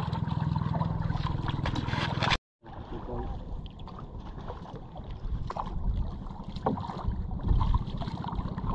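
Small boat's motor running steadily with an even low pulsing. It drops out completely for a moment about two and a half seconds in, then runs on somewhat quieter.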